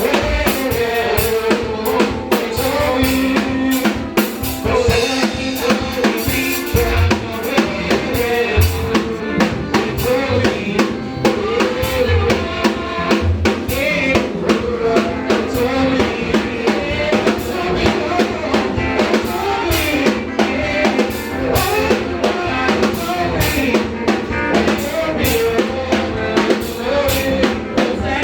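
Live church praise music driven by a drum kit keeping a steady beat, with a melody carried over it.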